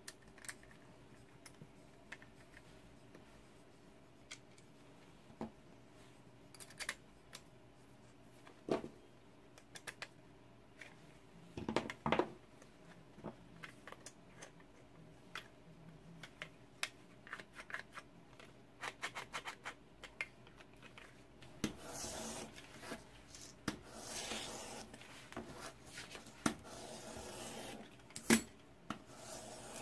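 Parts of a 3D-printed plastic rotary cutter being handled and fitted together: scattered light clicks and taps, a louder cluster of knocks about twelve seconds in, then a stretch of scraping and rubbing over the last third.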